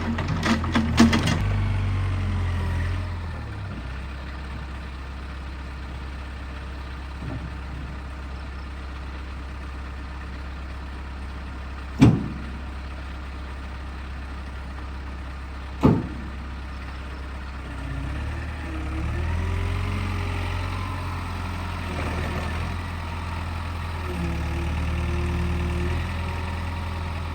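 Excavator's diesel engine running steadily, with a rapid rattle in the first second or so and two sharp, loud knocks about four seconds apart near the middle. The engine note rises and grows stronger in the second half as the machine works.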